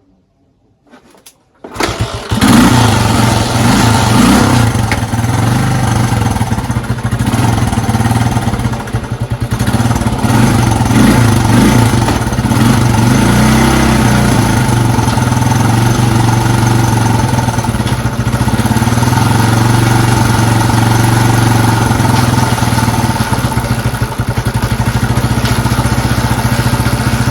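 Honda TLR200's single-cylinder four-stroke engine kick-started, catching about two seconds in, then running with the revs rising and falling a few times before settling to a steady idle.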